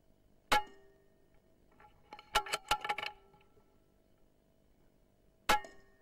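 Two air rifle shots about five seconds apart, each a sharp crack followed by a short metallic ring. Between them comes a quick run of sharp metallic clicks.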